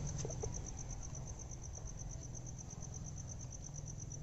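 An insect chirping steadily in fast, even, high-pitched pulses, faint, over a low steady rumble.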